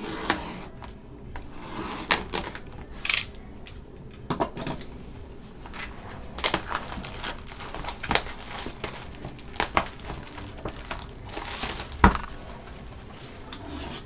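Plastic shrink wrap on a cardboard trading-card hobby box being slit with a utility knife and crinkled as it is pulled off, with scattered clicks and taps from the box being handled. A louder knock comes near the end.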